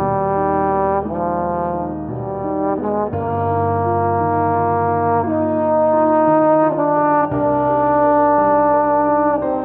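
Two trombones playing a slow, smooth melody in harmony, with long held notes.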